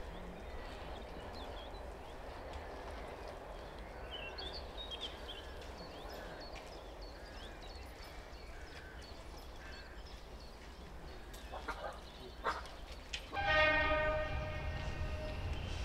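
A heritage diesel locomotive's horn sounds once near the end, a loud blast of about two seconds. Before it there is a steady low rumble with birds chirping and a few sharp knocks. After it the locomotive's engine rumble grows louder as it approaches.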